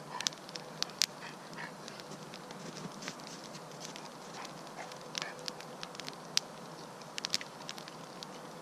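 Wood campfire crackling, with sharp irregular pops and snaps over a steady hiss.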